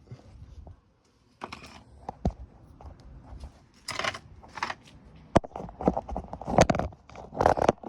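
Handling noise: irregular clicks, sharp taps and rustling, busier in the second half, as the camera is moved and set down near the work.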